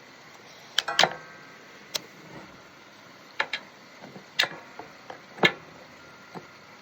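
Irregular sharp metallic clicks and taps, a second or so apart, one near the start ringing briefly: hand tools working on metal parts of a lawn mower.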